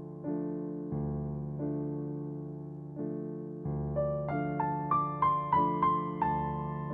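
Background piano music: soft sustained chords struck about once a second, then from about four seconds in a short run of single notes climbing higher over them.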